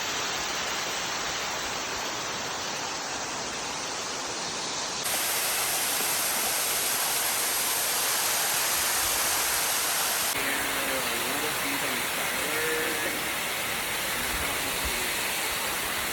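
Large waterfall rushing steadily, a dense even wash of falling water. Its tone shifts abruptly twice, at about five and about ten seconds in.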